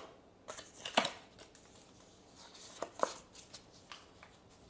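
Trading cards from a freshly opened booster pack being handled and flipped through: soft sliding with a few sharp card clicks, the loudest about a second in and two close together around three seconds.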